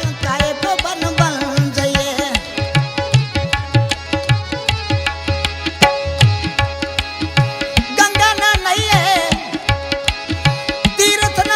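Instrumental passage of Rajasthani Sufi folk music: hand drums keep a steady rhythm under a melodic instrument playing ornamented, bending phrases over a sustained drone.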